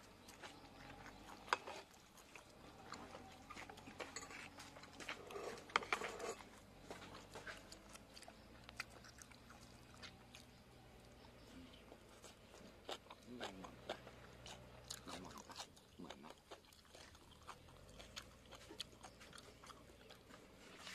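People eating a meal of boiled chicken: quiet chewing and crunching, with scattered small clicks and knocks.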